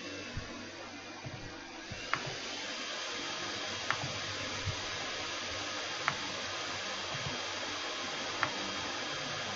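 Computer mouse clicking, four sharp clicks spaced about two seconds apart, over a steady hiss of background noise.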